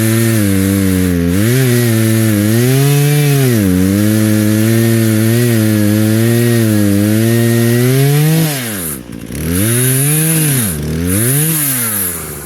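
Small Husqvarna 120 two-stroke chainsaw cutting limbs from a fallen maple, its pitch sagging and recovering again and again as the chain bites into the wood. About two-thirds of the way through it drops to a low idle, is revved up twice, and then falls away as the cutting ends.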